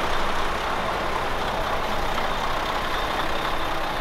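Diesel railcar engine idling steadily with an even low rumble, the train standing at the platform.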